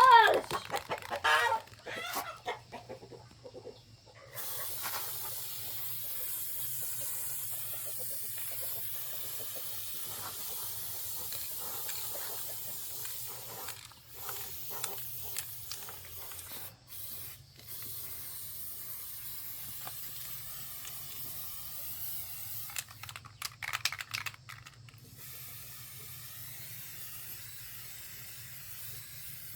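A short high call at the start, then from about four seconds in a steady hissing noise that breaks off briefly a few times.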